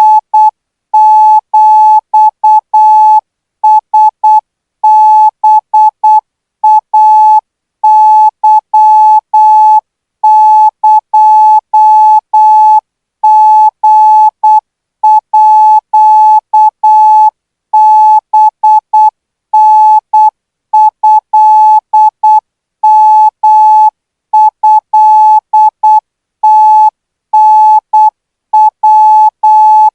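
Morse code practice tone sending Thai Morse characters at 12 words per minute: a single steady beep keyed on and off in short dots and long dashes, with short gaps between characters and longer ones between words.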